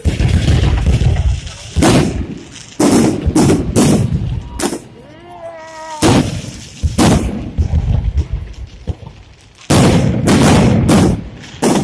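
Fireworks salute: repeated loud booms of shells bursting overhead, with a crackle after each, coming in clusters. There is a lull about four to six seconds in, then the bursts go on near the end.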